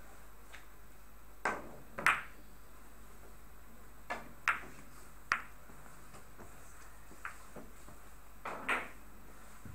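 Billiard balls on a carom table: a cue strike followed by sharp clicks of ball against ball and knocks off the cushions, about seven in all at uneven intervals, the loudest about two seconds in.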